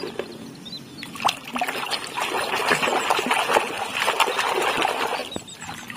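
Water splashing and trickling as a muddy toy is rinsed by hand, building a little after a second in and easing off shortly before the end.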